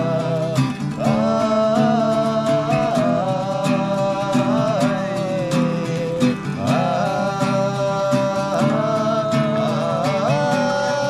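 Background music from a Nepali folk-style song: a melody of long held notes that slide from one pitch to the next, over plucked strings and a steady beat.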